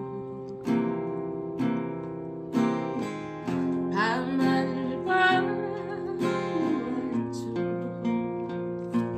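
Acoustic guitar strummed in a slow, steady rhythm, about one chord a second, with a singing voice carrying a wavering melody over it in the middle.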